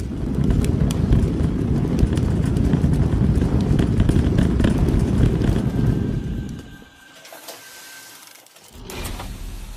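A loud, low rumbling noise with scattered crackles that dies away about six and a half seconds in; a fainter rumble returns near the end.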